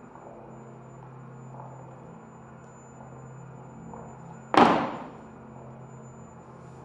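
A white plastic chair knocks down onto the stage floor once, a sharp loud knock with a short echo, over a faint steady hum.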